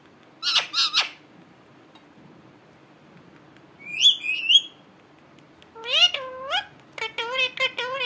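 Indian ringneck parakeet (rose-ringed parakeet) calling. It gives two short harsh squawks just after the start and a high, screechy gliding call about four seconds in. Near the end come runs of high, wavering, chatter-like calls.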